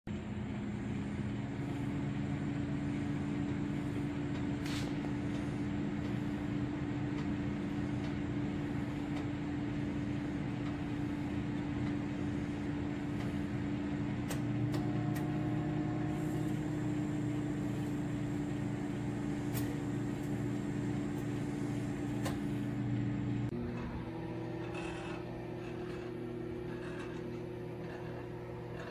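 Toshiba ML-EC42P countertop microwave oven running with a steady low hum and a few faint clicks. About 24 s in, the hum drops a little and changes pitch.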